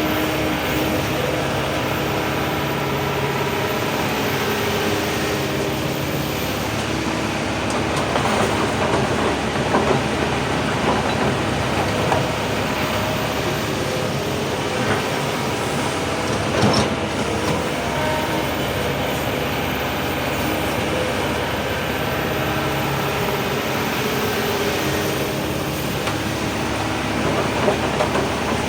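Heavy excavator's diesel engine running steadily under work, with intermittent clanks and rattles of rock and metal, a few clusters of them partway through and near the end.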